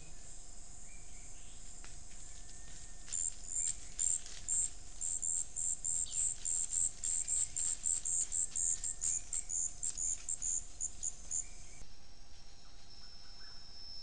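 A rainforest insect chirping in a rapid, even series of high, double-pitched pulses, about three to four a second, starting about three seconds in and stopping shortly before the end. Near the end it gives way to a steady high insect drone.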